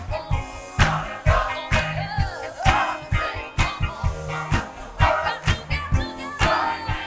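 Gospel choir and band performing live, with a steady beat and bass line under the singing. A woman sings lead into a handheld microphone.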